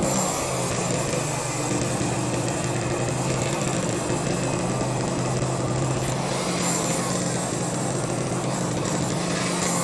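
A small motor running steadily at a constant pitch, from power equipment breaking up a crumbling concrete pad.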